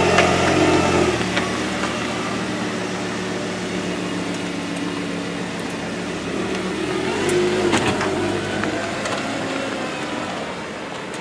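Lamborghini Gallardo LP570-4 Superleggera's V10 engine running at low revs as the car pulls away, swelling briefly about two-thirds through, then fading as it drives off.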